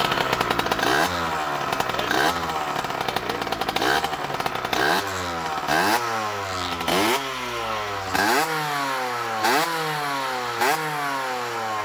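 Small 50 cc two-stroke dirt bike engine running on a stand, revved up and dropped back repeatedly, about once a second.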